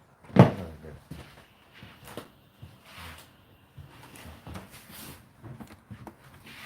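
A single sharp knock about half a second in, then scattered faint clicks and knocks.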